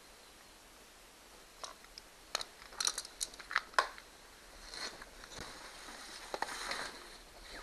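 A quick run of sharp clicks and knocks from a metal tap-and-die wrench being handled and turned at a battery post, followed by a few seconds of rustling and crinkling.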